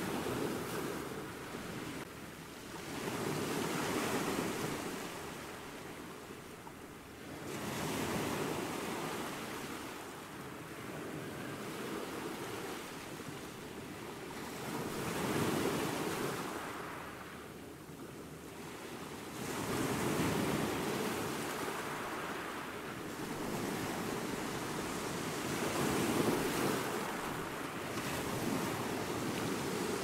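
Small waves breaking on a sandy beach, the surf swelling and fading every five seconds or so.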